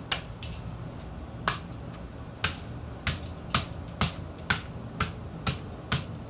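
A hammer striking a green coconut, sharp single knocks a second or so apart at first, then quickening to about two a second.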